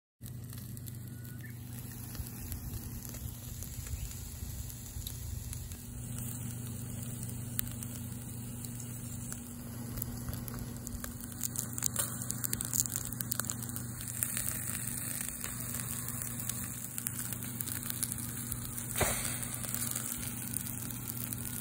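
Split eel grilling on a wire net over a charcoal shichirin: a steady sizzle with many small crackles and pops as the fat drips onto the coals, over a constant low hum.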